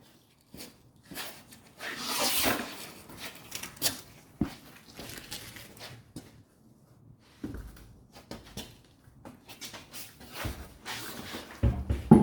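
Irregular clatter of knocks, clicks and scraping noises, with no steady machine sound.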